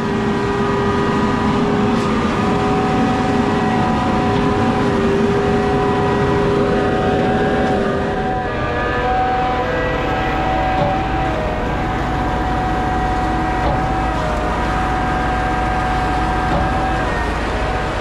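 Heavy diesel truck engine running at a steady speed, with several steady whining tones over a loud rumble. The tones shift in pitch about halfway through.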